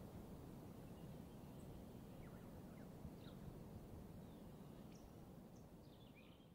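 Faint dawn chorus: a few scattered, short, high bird calls over a low, steady background rumble, fading out near the end.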